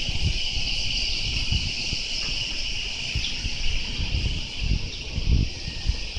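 Steady chorus of summer cicadas, a continuous high-pitched buzz, over an irregular low rumble on the microphone.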